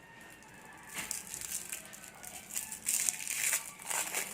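Candy wrappers crinkling in several scratchy bursts as Snowbird candies are unwrapped by hand, loudest about three seconds in.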